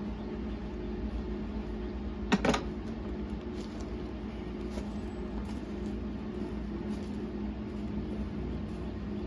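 Steady machine hum, with a sharp double knock about two and a half seconds in and a few faint ticks after it.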